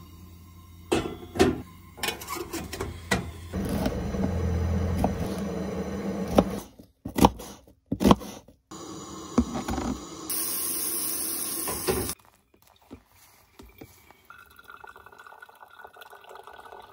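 Camp-kitchen cooking sounds in quick succession: a propane stove burner running under a kettle, a few knife chops on a wooden cutting board around the middle, and hot water poured from the kettle into a paper coffee filter near the end.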